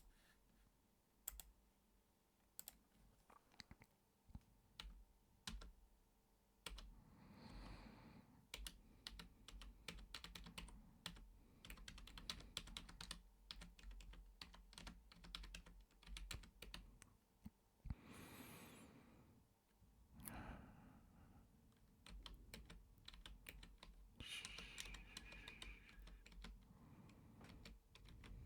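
Quiet typing on a computer keyboard: an irregular run of soft key clicks, with a few longer soft rushes of noise in between.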